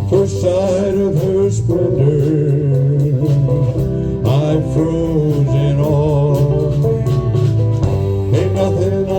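Band playing an instrumental passage on acoustic guitar, lap steel guitar, bass and drums.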